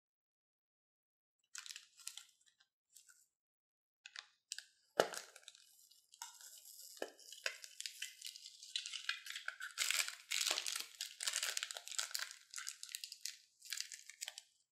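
Plastic zip-lock bag crinkling as it is squeezed and white foam is pushed out of it into a glass dish. Scattered crinkles at first, a sharp click about five seconds in, then a dense crackle from about six seconds in.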